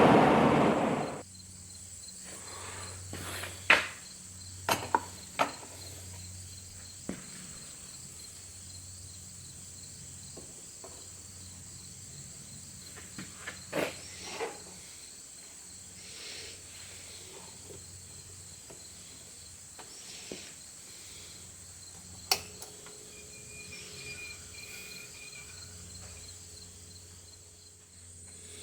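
Faint, steady high-pitched chirring, with scattered light clicks and knocks. A loud rushing noise cuts off suddenly about a second in.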